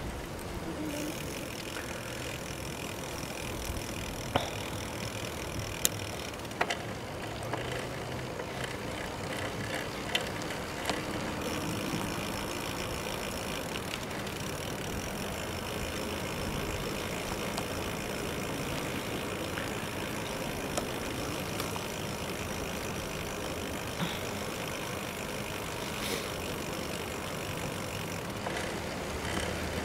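Giant FastRoad Advanced 1 bicycle riding along a paved path, picked up by a handlebar-mounted camera: steady wind and tyre noise with a few sharp clicks and knocks scattered through it.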